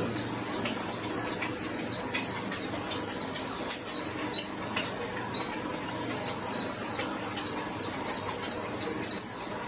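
A small animal's high chirping call, one short note repeated about two to three times a second, with a brief pause midway and short clicks among the notes.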